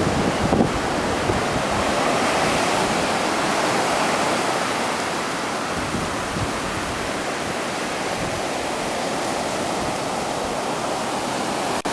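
Ocean surf breaking and washing through the shallows: a steady rushing noise.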